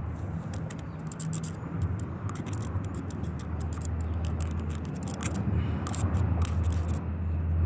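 Irregular light clicks and scrapes of small carburetor parts being handled and tapped, over a steady low rumble that swells near the end.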